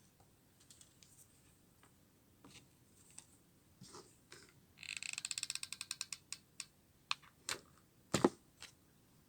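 Small handling clicks and taps of craft work. About five seconds in comes a quick run of sharp clicks, roughly ten a second, like a ratchet, followed by a few louder single clicks.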